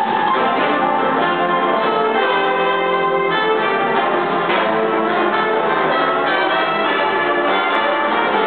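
Jazz big band playing, the saxophone and brass sections holding full chords that change every second or so.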